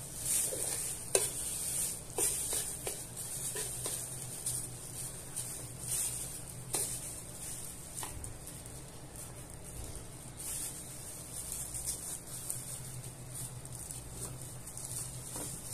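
Plastic food-handling gloves and a plastic lining crinkling and rustling as coconut filling is spread and a chocolate sponge layer is pressed down into a metal cake ring, with a few light knocks and scrapes.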